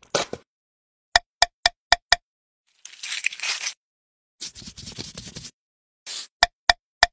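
Sharp wooden clicks and taps, a quick run of five about four a second, then short hissing squirts of glue from a bottle into a hole in a wooden dowel, and three more clicks near the end as the glued dowel pieces are fitted together.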